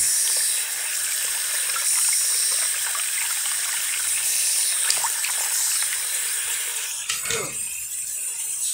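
Bathroom sink faucet running steadily, its stream splashing over a hand and a small plastic toy car held under it in the basin. A brief falling whine sounds about seven seconds in.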